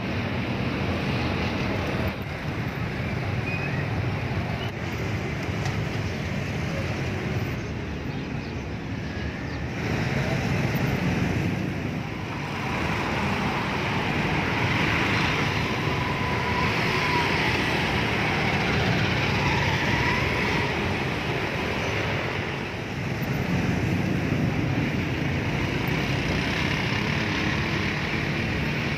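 Street traffic noise: cars and motorbikes passing on a busy road, a steady continuous rumble.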